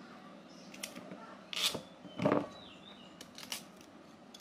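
Hands peeling raw cassava over a plastic basin: scattered crackles and rustles as the skin comes away, with a dull knock a little past two seconds in.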